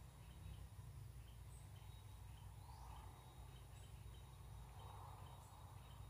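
Near silence: faint outdoor ambience with a steady low rumble, a thin steady high insect hum, and scattered faint bird chirps, one of them a short rising whistle a little past halfway.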